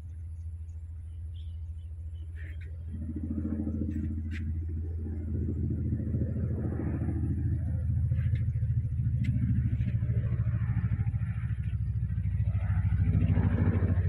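Helicopter flying overhead: a low, rapidly pulsing rotor beat that grows steadily louder as it approaches.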